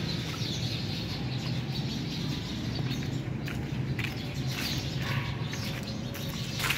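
Birds chirping in short scattered calls over a steady low rumble.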